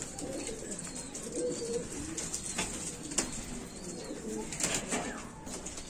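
Domestic pigeons cooing in a loft: low, wavering coos, with a few short sharp clicks among them.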